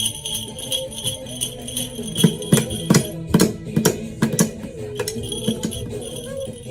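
Toy percussion played unevenly by a small child: jingle bells ringing and shaking, with a run of irregular knocks and strikes in the middle.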